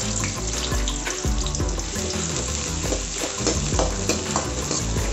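Chopped onions sizzling in hot oil in a metal kadai, with a steel ladle clicking and scraping against the pan as they are stirred. Background music plays underneath.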